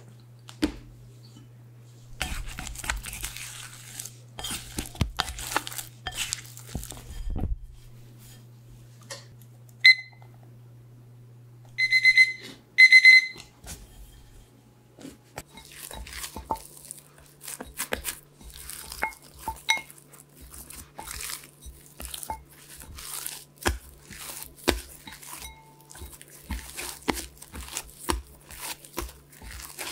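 Cloth rustling as a bowl of dough is covered, then a few electronic timer beeps: one short beep, then two louder beeps together. After that comes a run of soft sticky squelches and light taps as proofed pretzel dough is folded by hand in a ceramic bowl.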